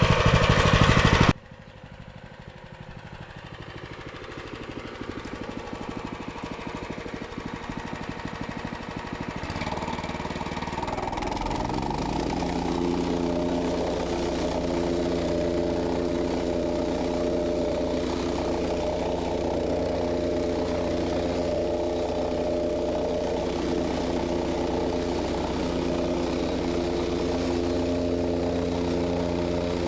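Gas engine of a machine on a paving site. It is faint at first and grows louder, revs up about ten seconds in, then runs at a steady speed.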